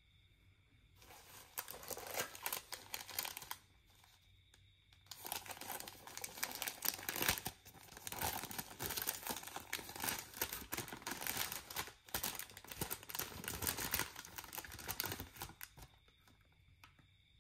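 Thin paper bag and paper wrapping crinkling and rustling as hands pull it open and unfold it. A short spell comes about a second in, then a longer unbroken one from about five seconds until shortly before the end.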